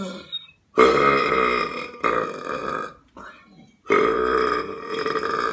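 A person belching loudly, two long belches. The first starts about a second in and lasts about two seconds, with a brief break midway; the second starts about four seconds in.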